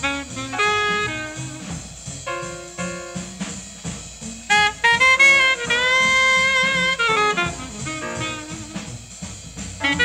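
1950 bebop jazz combo studio recording: a horn solos in quick runs with one long held note partway through, backed by the rhythm section.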